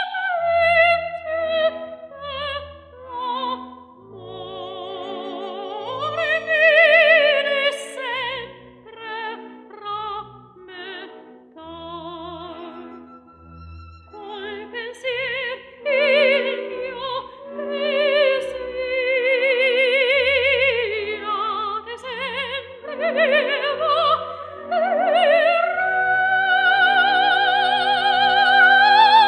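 Background music: an operatic singing voice with heavy vibrato, holding long notes over sustained accompaniment.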